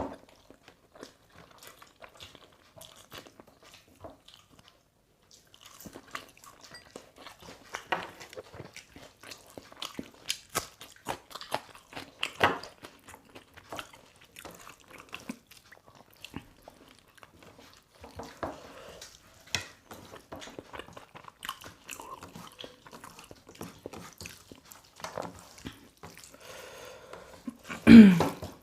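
People chewing and biting into a chicken meal, with many small wet clicks and crunches of eating, paused for a second or so about four seconds in. A brief, louder sound with a falling pitch comes near the end.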